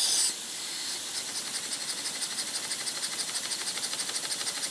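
Small vertical Sipp steam engine starting and running on low pressure of about 2 PSI. A steady hiss of escaping supply cuts off sharply right at the start. About a second in, the engine settles into a quick, even chuff of exhaust puffs, about five or six a second.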